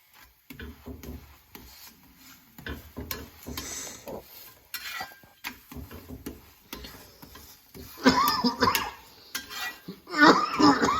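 Spatula scraping and clinking against a hot griddle while a pancake cooks, with two louder scraping runs about eight and ten seconds in.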